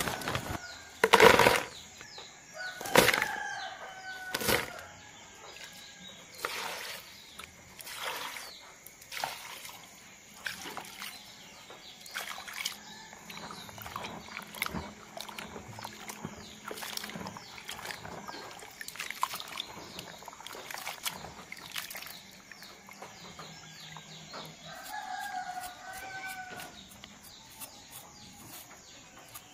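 Hands rustling and crinkling a plastic bag of dried bamboo shoots, then squelching and splashing soaked shoots in a basin of water, a string of short handling noises with the loudest crinkle about a second in. A rooster crows in the background, once early and again near the end.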